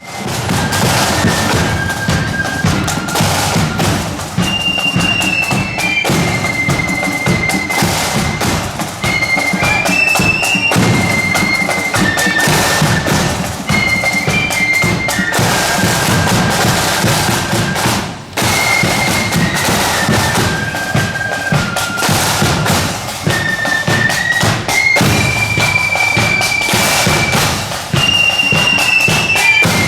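Marching flute band playing a tune in unison: a high flute melody moving in steps over loud drumming with bass drum beats.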